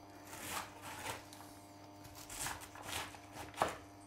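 Kitchen knife cutting through white cabbage onto a wooden cutting board: about five separate cuts, the last the loudest.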